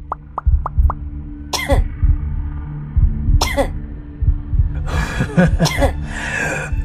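Background music with a steady low beat, over which a person coughs twice, about one and a half and three and a half seconds in, followed by a longer run of voice sounds near the end.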